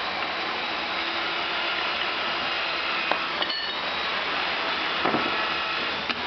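A steady rush of shop machinery air noise, with a few light metallic clinks of tools and metal parts being handled about three, three and a half, five and six seconds in.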